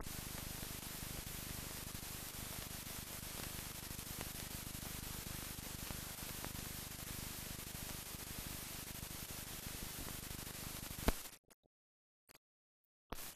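Steady hiss of an old film soundtrack with a faint low hum underneath. It cuts off with a click about eleven seconds in.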